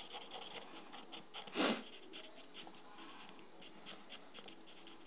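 Felt-tip marker scratching in quick short strokes over a piece of dry penne pasta as it is coloured in brown. A brief, louder breath about a second and a half in.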